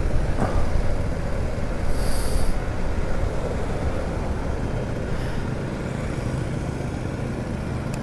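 BMW GS motorcycle being ridden in street traffic: a steady mix of engine, road and wind noise that eases slightly, with a brief hiss about two seconds in.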